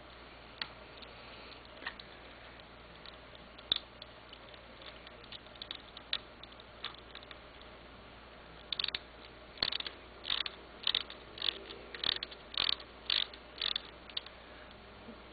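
Mounting screw of a bicycle tail-light bracket being driven into its seated nut with a small hand tool: a few scattered clicks at first, then from about nine seconds in a regular run of clicks about two a second as the screw tightens down.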